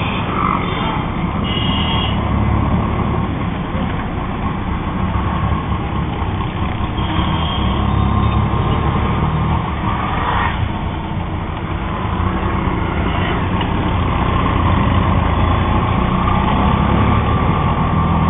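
Auto rickshaw's small engine running steadily under the passenger seat as it drives through traffic, with road and street noise around it. It gets a little louder over the last few seconds.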